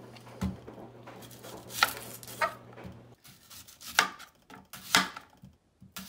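Chef's knife slicing an onion on a wooden cutting board: several sharp knocks of the blade against the board, roughly a second apart. Under them a steady low hum from a running household machine cuts off about three seconds in.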